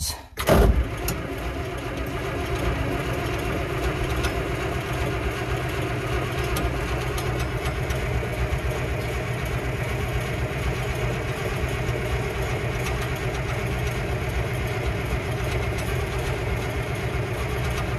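Diesel farm tractor engine, cold after sitting unused for weeks, catching about half a second in and then idling steadily, heard from inside the cab.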